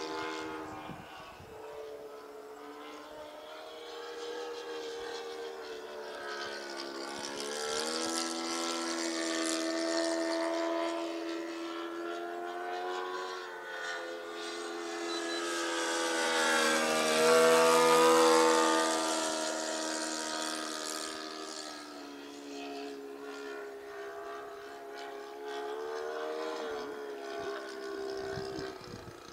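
OS 91 Surpass four-stroke glow engine of a Hangar 9 P-51 Mustang radio-control model in flight, a steady buzzing engine note that rises and falls in loudness as the plane flies its circuit. It is loudest about 17 seconds in as the plane passes close, its pitch dropping as it goes by.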